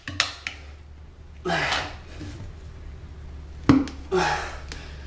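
Two strained, effortful exhales, grunt-like, from a person forcing a motorcycle tire bead over the rim by hand and with tire irons, with a sharp knock of a tool a little past halfway and a small click near the start.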